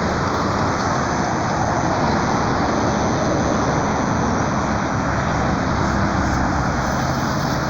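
Steady car engine and road noise while driving, with a faint thin high-pitched whine over it from about a second in: the cicada- or cricket-like buzz that the driver hears and believes is coming from the sky.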